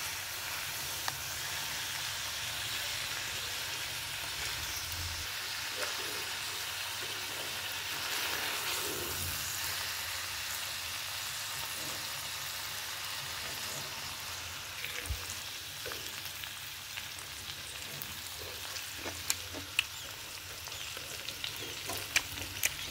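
Dried meat, green beans and peppers sizzling steadily as they stir-fry in a pan, with a metal spoon scraping and clicking against the pan now and then, more often near the end.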